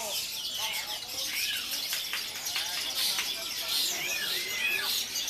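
Many caged songbirds singing at once in a dense, overlapping chorus of fast chirps, trills and whistles, with murmuring voices beneath.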